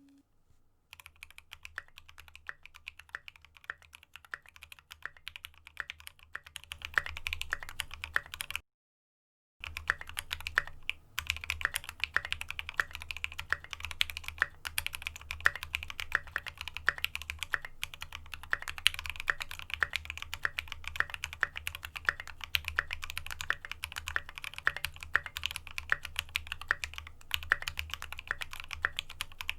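Rapid, continuous typing on a mechanical keyboard, a custom F1-8X with SA keycaps, the keystrokes clicking several times a second. The typing is softer for the first several seconds, then louder, and the sound drops out completely for about a second around nine seconds in, as at an edit cut. A faint low hum lies under it.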